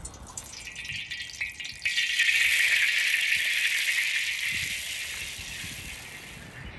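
Water poured into a hot metal wok sizzling. A sharp hiss starts about two seconds in and slowly dies away.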